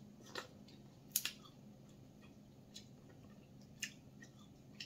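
Cooked crab shell cracking and clicking in the fingers as crab meat is picked out: a few short, sharp snaps, the loudest a double snap about a second in.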